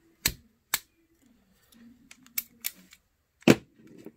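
Handling clicks and knocks of a lightsaber chassis and its removed battery: two sharp clicks near the start, faint rustling with small ticks, then one louder knock about three and a half seconds in.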